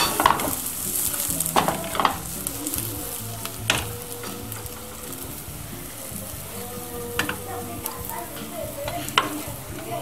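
Spinach-and-egg crepe sizzling steadily in a hot frying pan after being flipped, with a few sharp clicks of the pan and utensils.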